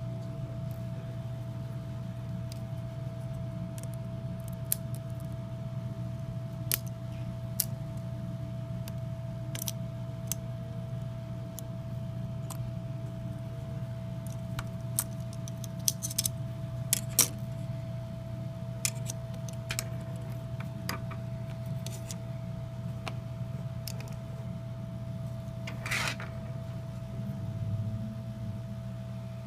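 Scattered small clicks and taps from handling a smartphone and small repair tools, over a steady low hum and a faint steady whine.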